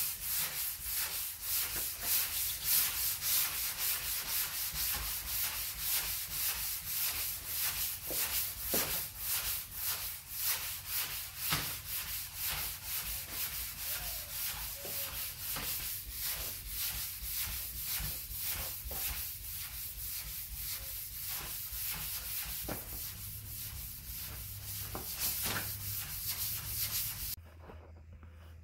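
Hand block sanding of high-build primer on a car trunk lid with 400-grit paper on a sanding block: a rhythmic hiss of quick back-and-forth strokes, cutting through the guide coat to level the primer. The strokes stop shortly before the end.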